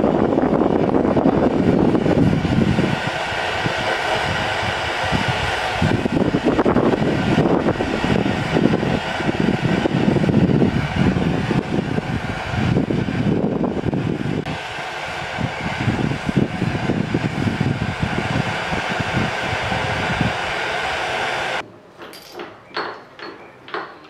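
Gas torch flame rushing steadily while it heats a small piece of metal on soldering bricks to a red glow. The flame noise cuts off suddenly near the end, leaving a few light clicks.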